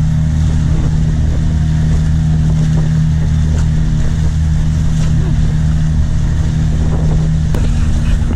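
Boat engine running steadily with an even low hum.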